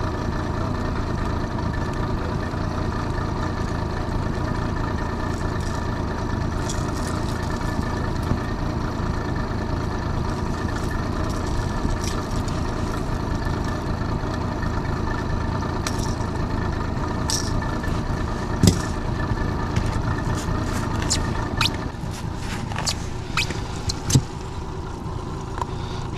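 Honda 30 hp four-stroke outboard motor running steadily. Near the end the hum drops and a run of sharp clicks and knocks follows.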